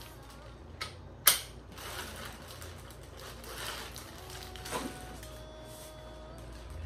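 Plastic wrapping rustling as a metal backdrop-stand pole is pulled out of its bag, with a sharp click about a second in and a few lighter clicks and rattles of the stand parts.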